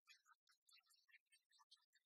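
Near silence, with only very faint, scattered short high-pitched blips.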